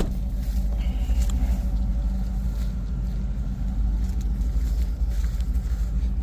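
Motorhome engine idling steadily, a low even hum.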